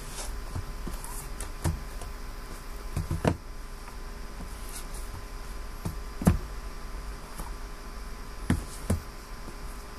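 Sealed cardboard boxes of trading cards handled and knocked on a table: a few scattered knocks and taps, the loudest about six seconds in, over a steady low hum.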